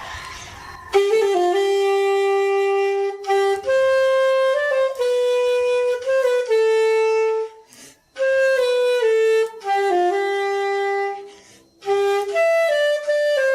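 Saxophone made from recycled spoon handles and buttons playing a solo melody of held notes, in three phrases with short breaks about eight and eleven and a half seconds in.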